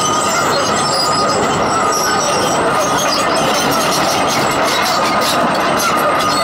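Komatsu PC220 hydraulic excavator travelling on its steel crawler tracks over gravel: diesel engine and track chains running loud and steady, with a steady high-pitched squeal.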